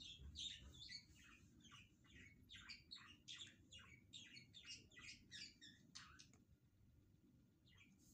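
Small birds chirping faintly, a quick run of short high chirps, several a second, that thins out about six and a half seconds in and picks up again near the end, over a low rumble.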